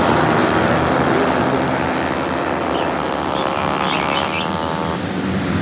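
Racing vehicle engines running at speed, several overlapping, with one climbing in pitch a few seconds in as it revs up, over birds chirping. The engine noise cuts off abruptly near the end.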